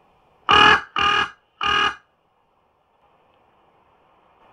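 Crow cawing: three loud, harsh caws in quick succession about half a second in, then a pause, with another caw starting right at the end.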